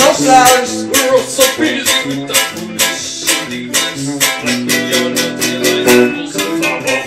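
Live acoustic music: strummed string instruments, guitar-like, playing chords in a steady rhythm.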